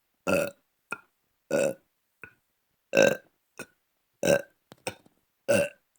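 A person burping repeatedly: five short burps about one and a quarter seconds apart, with a faint short sound between each.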